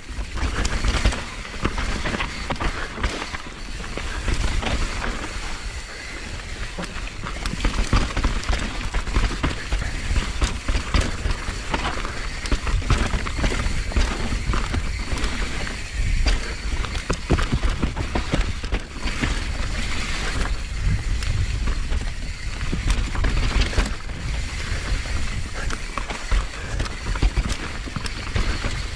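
Mountain bike riding down a dirt bike-park trail, with wind buffeting the microphone in a steady low rumble. The tyres crunch over dirt and rock, and the chain and frame give a constant run of short rattles and knocks over the bumps.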